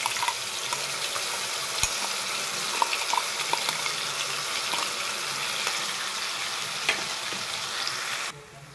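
Onion, garlic and ginger paste sizzling as it goes into hot mustard oil in an aluminium kadhai, with a few light clinks of a spoon scraping the steel mixer jar. The sizzle cuts off abruptly near the end.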